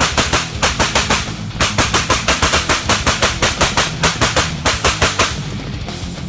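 PSA AK-P pistol in 7.62×39 firing rapid strings of shots from a drum magazine, about eight a second, bump-fired. The shooting breaks off briefly about half a second and a second and a half in, then runs as one long string that stops about a second before the end.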